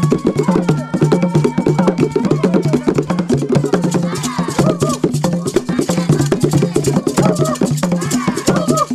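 Fast traditional Chewa drumming accompanying the Gule Wamkulu dance: dense, rapid strokes over a low drum tone that repeats steadily, with voices calling and singing over it now and then.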